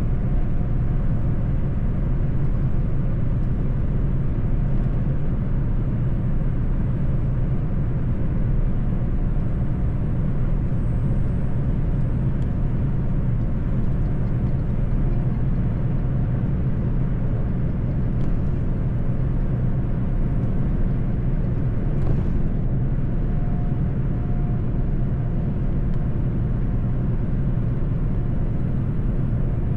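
Mercedes-Benz truck driving at a steady speed: a constant low engine drone mixed with road rumble.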